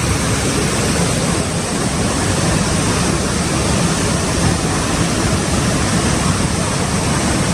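Waterfall and fast-flowing river water rushing steadily, running high with a lot of water.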